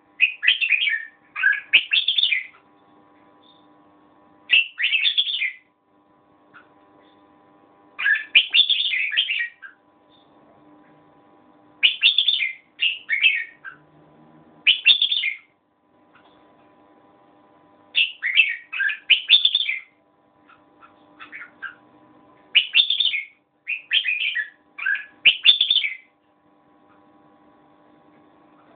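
Red-whiskered bulbul singing: short, quick, chattering phrases a second or two long, repeated every few seconds, with brief pauses between.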